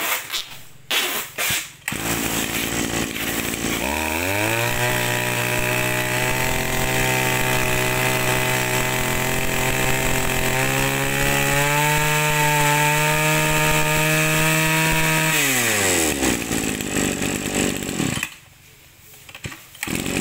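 Maruyama 32 cc two-stroke brush-cutter engine starting about two seconds in. It revs up to a high, steady speed a couple of seconds later and climbs a little higher around the middle. It then drops off and goes quiet a couple of seconds before the end.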